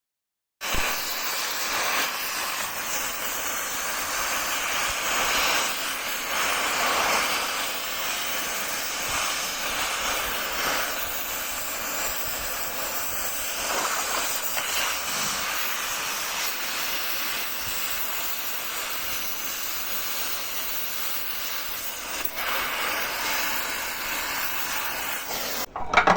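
A steady hiss that starts abruptly just after the beginning, runs unchanged for about 25 seconds and cuts off abruptly near the end.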